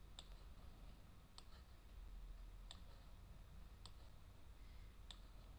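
Faint computer mouse button clicks, five of them about a second and a quarter apart, over near silence.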